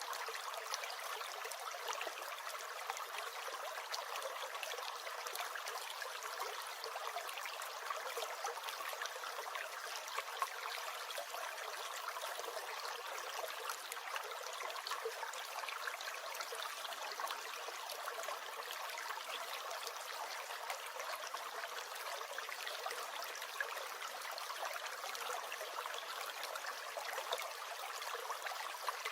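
Small stream gurgling and trickling steadily.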